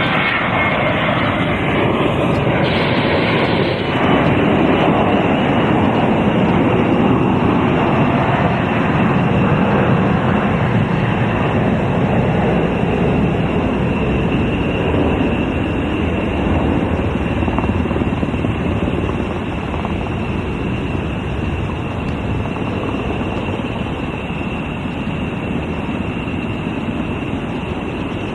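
Coast Guard search and rescue helicopter running on the ramp: a loud, steady turbine noise with a thin high whine, easing slightly in the second half.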